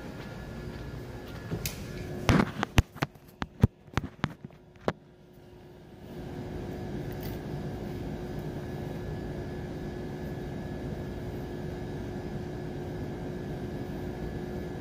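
Phone microphone being handled: a run of sharp knocks and rubbing clicks about two to five seconds in, over a steady ventilation hum that drops briefly and then returns.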